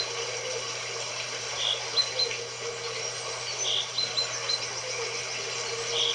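Nature-sound background of birds chirping: short high chirps, often in pairs, and a rounder call repeating about every two seconds, over a steady hiss.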